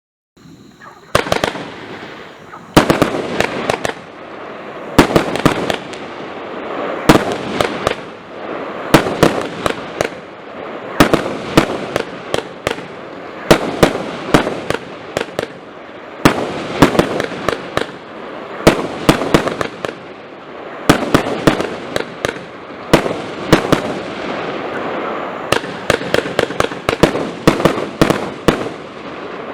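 Compound fireworks battery (Diamond Feuerwerk 'Inferno', 120 shots) firing: clusters of sharp reports about every two seconds over a steady crackling hiss, starting about half a second in.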